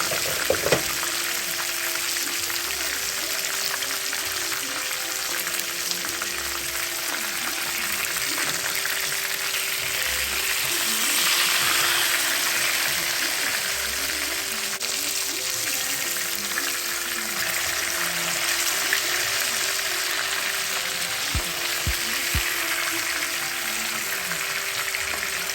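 Chicken frying in hot oil in a pot: a steady sizzle that swells a little about eleven seconds in, with a few soft knocks near the end.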